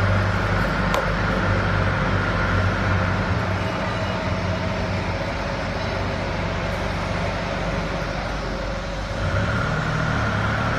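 Automatic chain link fence machine running steadily as it weaves wire mesh and winds it onto the roll: a continuous motor hum with a steady higher whine and a single click about a second in.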